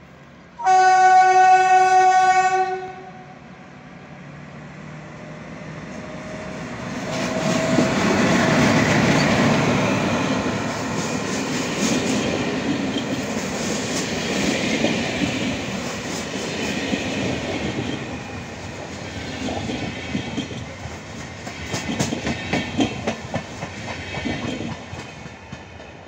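Diesel locomotive 745 703 sounds its horn once, a two-second blast, then it and its train of passenger coaches roll past close by. There is a steady rumble of the passing coaches with wheels clattering over rail joints, loudest as the train goes by, easing off near the end as the last coach moves away.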